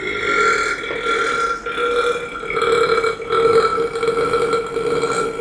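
A man belching long and drawn-out, one burp running on for seconds with a few brief breaks.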